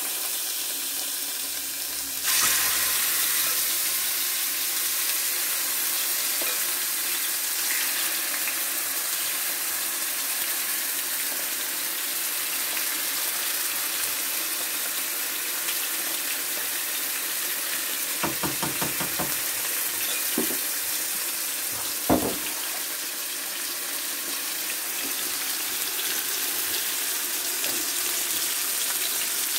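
Marinated chicken pieces sizzling in hot oil in a non-stick frying pan, the sizzle getting louder about two seconds in. A quick run of clicks comes a little past halfway, then a single knock a few seconds later.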